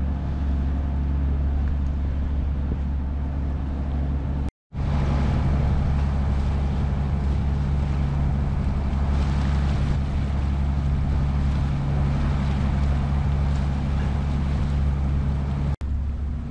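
Boat engine running with a steady low hum under wind and water noise, as heard on board. The sound drops out for a moment about four and a half seconds in and again near the end, where clips are joined.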